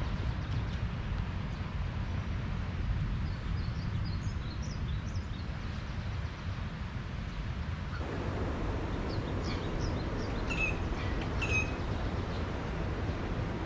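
Small birds chirping in short bursts, a few seconds in and again near the end, over a steady low outdoor rumble.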